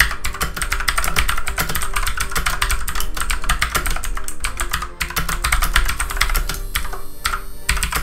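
Fast typing on a Redragon Kumara K552 mechanical keyboard with Outemu blue switches: a dense, pretty loud run of key clicks, with a brief pause about five seconds in.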